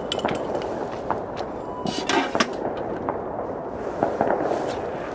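Many fireworks going off at a distance: a steady din of crackling with scattered pops and bangs. There is a louder half-second burst about two seconds in.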